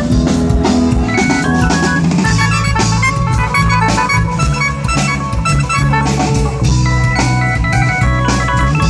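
Ramwong dance music: an electronic organ plays a quick melody of short notes over sustained bass and a drum kit.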